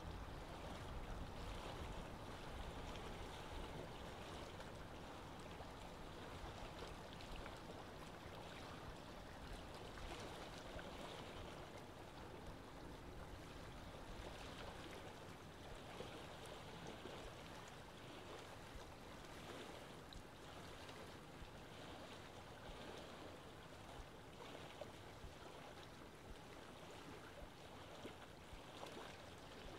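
Faint, steady rush of flowing water, like a small stream, with a low rumble easing off in the first few seconds.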